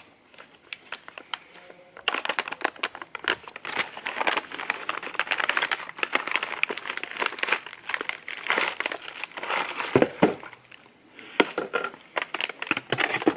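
Plastic packaging crinkling and rustling as a bag of small accessory parts is torn open and rummaged through. It is light at first, then steady crackling from about two seconds in, with a few sharper clicks near the end.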